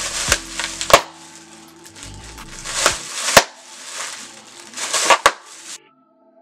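Plastic packaging bags crinkling and rustling as items are packed into a cardboard box, with several sharp knocks against the box. The sound cuts off suddenly near the end, and faint music comes in.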